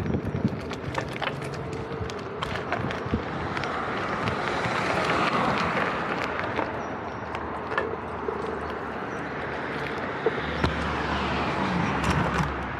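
Rushing wind and road noise during a ride on a Onewheel electric board, swelling twice, with scattered sharp clicks and knocks.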